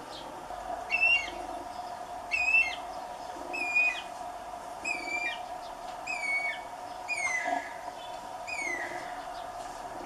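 Guira cuckoo calling: a series of seven shrill cries about one every second and a quarter, each sliding downward in pitch. The first cries are the loudest and the later ones slide lower. A steady background hum runs underneath.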